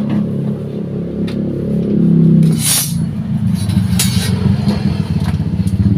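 Yamaha NMAX scooter's single-cylinder four-stroke engine running. Its note changes about halfway through, and two short hisses come through soon after.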